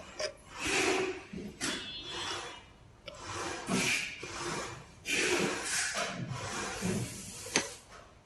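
Irregular rubbing and scraping strokes from hand work on parts, with a sharp click near the end.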